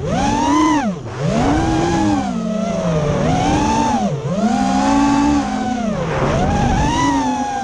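FPV racing quadcopter's motors heard from its onboard camera: a whine that rises and falls with the throttle, dropping low three times, about a second in, near the middle and about six seconds in.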